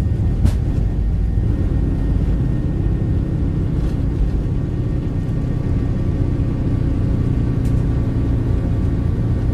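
Airliner cabin noise: a steady low rumble of engines and air, with a brief click about half a second in.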